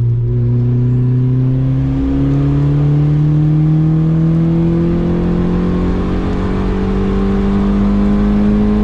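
Turbocharged Honda D16Z6 single-cam VTEC four-cylinder pulling hard in a tuning run. The engine note holds steady for about two seconds, then climbs steadily in pitch as the revs rise.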